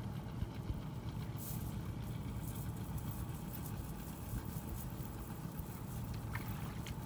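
Steady low engine drone with a faint click about six seconds in.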